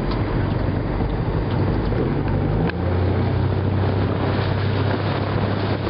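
Small motorboat engine running steadily at speed, with wind and water wash over it; the engine note shifts nearly three seconds in and then holds steady.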